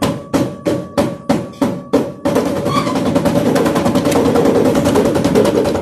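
Tajima TMEF embroidery machine's frame drive stepping the hoop forward with the main motor unplugged, so the frame moves without the needle stitching. Regular knocks about three a second, then from about two seconds in a fast continuous rattle of steps.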